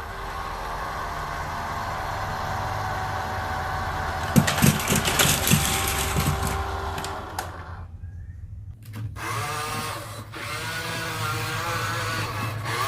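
Small electric motors and gears of radio-controlled construction models whirring steadily, with a burst of clicking and rattling about four seconds in. The sound cuts out briefly near the eight-second mark, then a motor whine comes back, its pitch wavering up and down.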